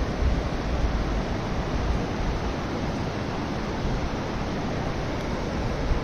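Shallow mountain river rushing over a stony bed: a steady, even rush of flowing water.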